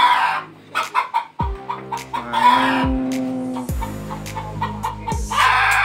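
Background dance music with a deep, falling bass-drum beat and held low tones, and a chicken's call heard three times over it: at the start, midway and near the end.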